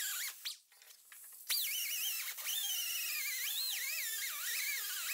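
Pneumatic die grinder with a small, worn-down cutoff disc cutting the outer sheet-steel panel of a car's A-pillar: a high whine that wavers in pitch as the disc bites. It stops about half a second in and starts again about a second later.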